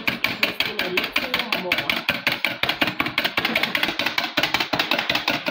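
Wire balloon whisk beating eggs by hand in a stainless steel pot, the wires clinking against the metal sides in a fast, even rhythm.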